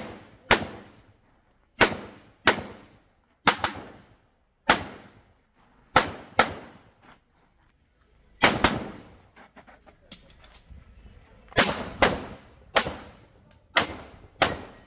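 A competition pistol firing a string of about fifteen shots, mostly quick pairs (double taps) with short pauses between them as the shooter moves from target to target, each shot followed by a brief ringing echo.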